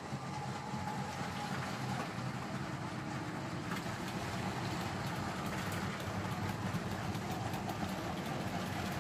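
Brick-built model of the DB V188 locomotive running with its electric motors and gears whirring steadily as it hauls a long train of plastic freight wagons around plastic track.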